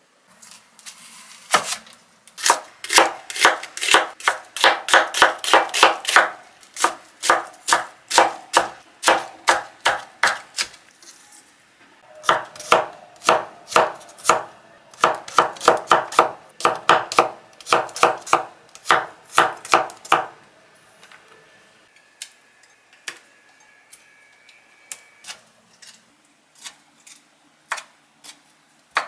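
A kitchen knife chopping garlic on a cutting board in quick, even strokes, about three to four a second. After about twenty seconds the strokes become fainter and sparser as the knife cuts through raw shrimp.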